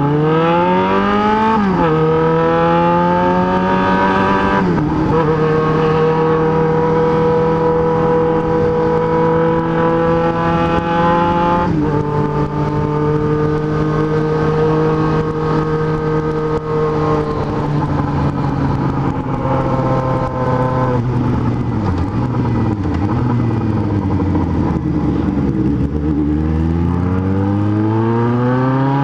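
Yamaha XJ6 N's inline-four engine pulling hard through the gears, its pitch climbing and then dropping sharply at each of three upshifts. It holds steady at cruising revs, falls away as the bike slows, and climbs again near the end.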